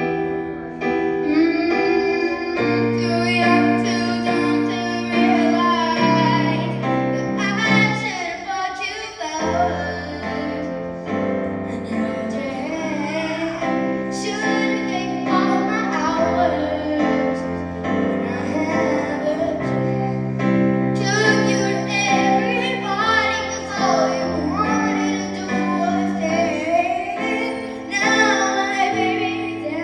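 A female vocalist singing a pop ballad with piano accompaniment, the piano holding chords that change every second or two under the sung melody.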